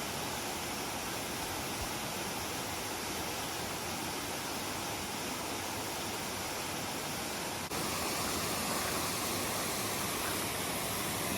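Steady rushing of a waterfall, a little louder after an abrupt cut about eight seconds in.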